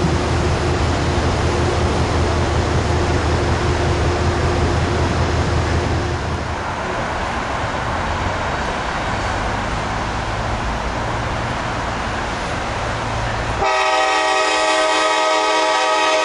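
Rumble of a Metro-North electric commuter train running on the rails as it pulls away, fading after about six seconds. Near the end a train horn sounds suddenly in one long, loud, steady chord.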